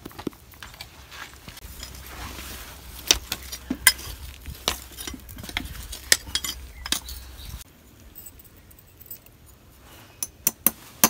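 A farrier's metal tools clicking and clinking against a horseshoe and hoof, scattered single taps. Near the end come three quick, sharp hammer strikes as the shoe is held to the hoof for nailing.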